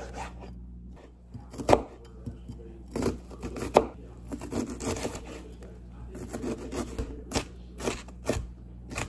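Kitchen knife chopping on a plastic cutting board in irregular strokes, cutting raw chicken and dicing a red onion.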